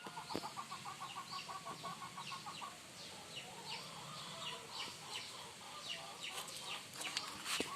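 Birds calling: a steady run of short, falling high chirps, about two to three a second, with a rapid lower trill over the first couple of seconds. A few sharp clicks near the end.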